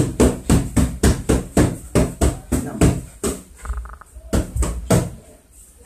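Punches landing on focus mitts in a fast, even string of sharp slaps, about three to four a second, breaking off briefly a little past the middle before a few more.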